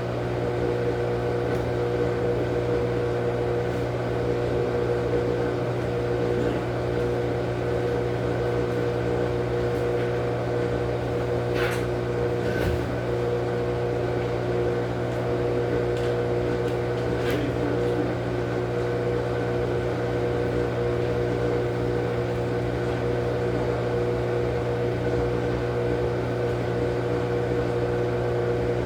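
Steady machine hum with a low fixed tone, and a couple of faint clicks about twelve and seventeen seconds in.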